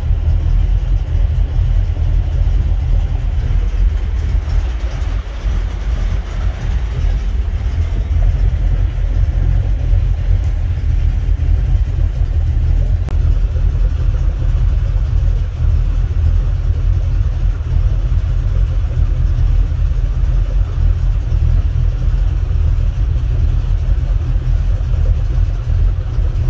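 A Birchwood 22 river cruiser's engine running steadily at low cruising speed, a constant low drone heard from inside the cabin.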